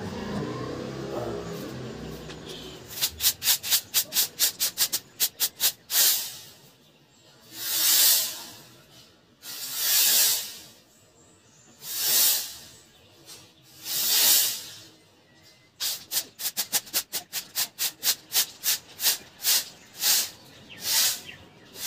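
A broom sweeping a tiled floor: a run of quick short strokes, then slower long swishes about every two seconds, then quick strokes again. A low engine sound, a passing motorbike, fades out in the first couple of seconds.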